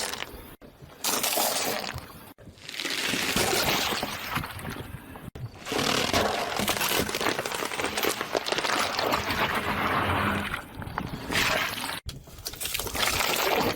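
Objects being crushed under a car's tyre: crackling, crunching breakage with some wet squishing, stopping and starting abruptly several times.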